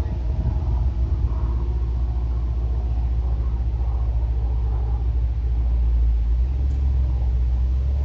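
Aircraft passing overhead: a steady low rumble, with a faint higher engine tone that fades out in the first half.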